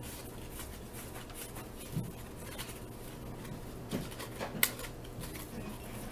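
A 1983 Topps wax pack being opened and its cards handled: faint rustling of the wax wrapper and cards, with a few soft clicks about two and four seconds in.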